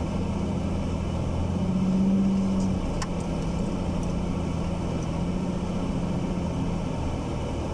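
Jeep TJ engine running steadily as the Jeep drives over snowy ground, picked up by a camera mounted on its hood. The hum swells briefly about two seconds in, and a single sharp click comes about a second later.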